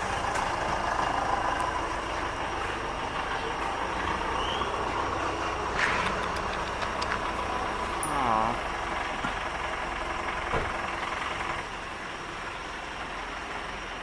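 A motor vehicle's engine idling with a steady low drone.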